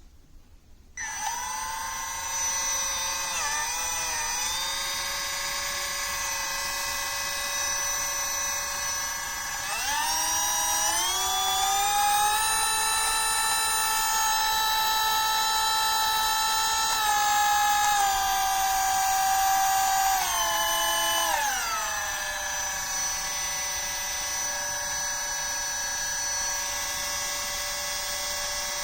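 DuroFort 8V cordless rotary tool running with a steady high whine, switched on about a second in. The pitch climbs partway through as the speed is stepped up, then falls back to a lower speed near the end.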